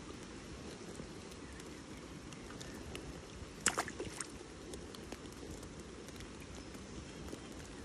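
Steady soft patter of light rain and water. A brief cluster of sharp clicks a little under halfway through comes from fishing line and lure being handled.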